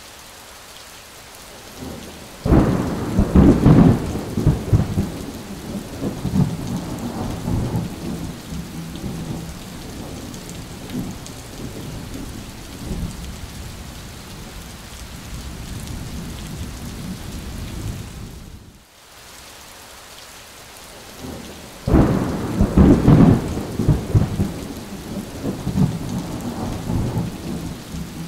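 Steady rain with two rolls of thunder, one about two and a half seconds in and another about twenty-two seconds in, each starting suddenly and rumbling away over several seconds. The sound drops out briefly about nineteen seconds in.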